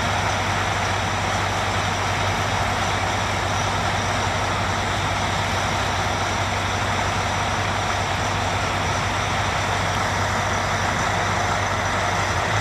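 Diesel engines of Caterpillar 583 sideboom tractors running steadily under load with an even low hum.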